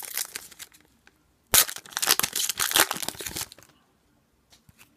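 A hockey card pack's wrapper is torn open and crinkled by hand, in two spells of rustling. The louder spell comes midway, and a few faint card-handling ticks follow near the end.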